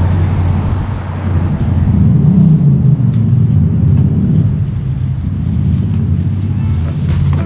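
Road traffic: car engines running and passing in a loud, steady low rumble, swelling about two seconds in. Sharp rhythmic ticks start just before the end.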